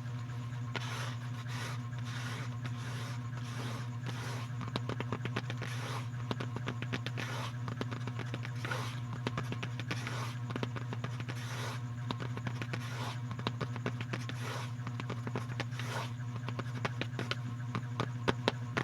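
Close-up scratching or brushing strokes, roughly one or two a second, with many small clicks, over a steady low hum.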